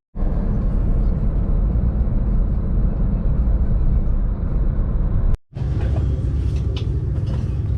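Steady low rumble of road noise inside a moving car, broken by an abrupt cut about five and a half seconds in before it carries on.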